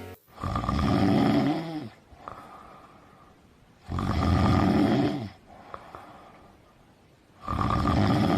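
A sick rooster's snoring, rattling breathing ('ngorok'), three long breaths about three and a half seconds apart. The snore is the sign of a respiratory illness with mucus clogging the airways.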